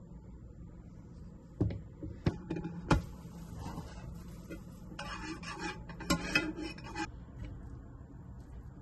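Cookware being handled on the stove: a few sharp knocks and clinks of pan and utensils, then a metal spoon scraping and stirring in a small saucepan of sauce for about two seconds, with two more clinks.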